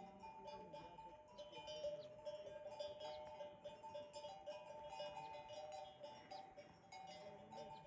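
Faint melodic music: a tune of short, clear notes moving between a few fixed pitches, over a quiet background hiss.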